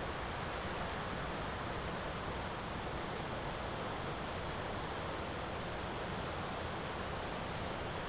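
Steady, even rushing background noise with no distinct events.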